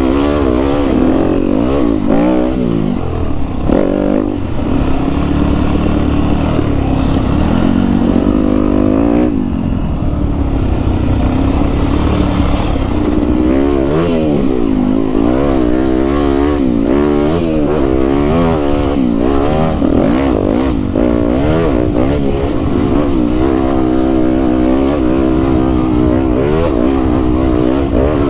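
Dirt bike engine heard from on board, revving up and down over and over as the bike is ridden along a dirt trail.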